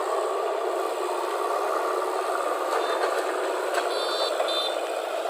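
Heavy machinery diesel engine running steadily, with a few short high tones about three to four and a half seconds in.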